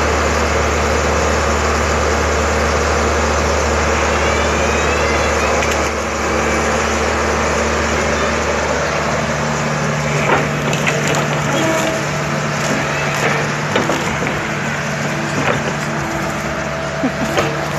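Excavator's diesel engine running steadily, its note shifting about nine seconds in, with scattered sharp cracking and snapping from about ten seconds on.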